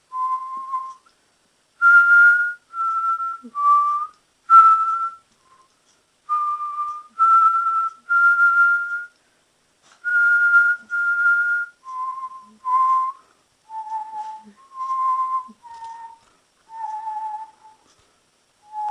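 A person whistling a slow tune of short held notes, stepping up and down in pitch and settling lower near the end.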